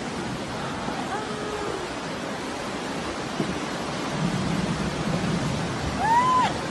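Muddy floodwater rushing down a street as a fast flash-flood torrent, a steady loud wash of water noise.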